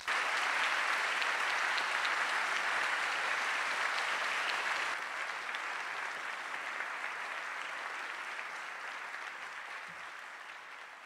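Large audience applauding. The clapping starts all at once, holds steady for several seconds, then gradually dies down over the second half.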